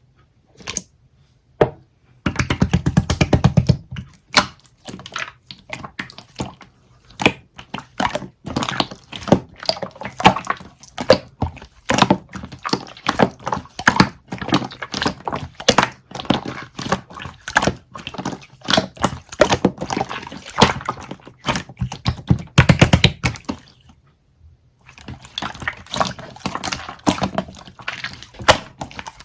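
Close-miked soda konjac jelly making a dense run of wet clicks and squishes. It starts about two seconds in and pauses briefly near the end.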